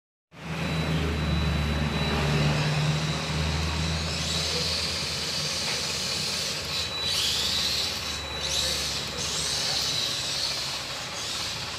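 Small electric miniature RC truck chassis driving across a tiled floor, its motor and gears whirring steadily, with a thin high whine over a hissing background.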